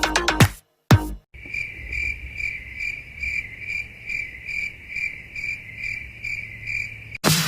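Cricket chirping sound effect, the stock 'awkward silence' crickets: a steady, even chirp repeating about two and a half times a second. Before it, about a second in, a dance-music beat cuts off, and the music comes back near the end.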